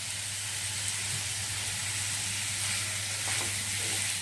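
Diced vegetables sizzling steadily in hot oil in a wok, with a low hum underneath. A metal spatula starts scraping and tossing them near the end.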